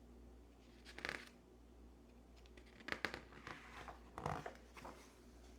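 Paper rustling in several short bursts, about a second in, around three seconds and again past four seconds, as the pages of a picture book are handled and turned.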